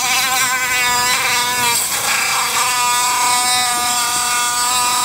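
Dremel 4000 rotary tool with a cutoff wheel cutting through a plastic front bumper lip: a high motor whine that wavers in pitch as the wheel bites for the first two seconds, dips briefly, then holds steadier.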